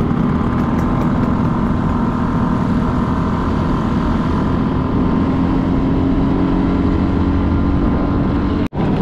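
Vespa scooter engine running steadily while riding, its note holding level. The sound cuts out for an instant near the end.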